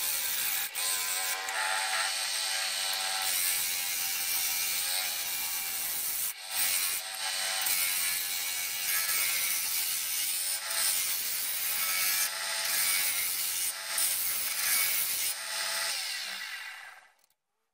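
Wood lathe spinning a chestnut blank while a hand-held turning tool shaves its outer face: a continuous loud scraping hiss of wood being cut, with a pitched hum that comes and goes as the tool bites. It cuts off sharply near the end.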